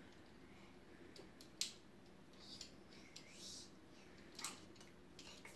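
Faint clicks and soft scraping as minced garlic is wiped out of a garlic mincer with fingers.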